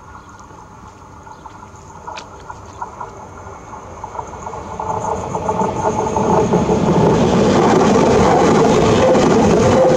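Francilien (Z 50000) electric multiple unit approaching and running past across a level crossing. It grows steadily louder over the first seven seconds, then holds loud as the cars go by, with a rhythmic rail clatter.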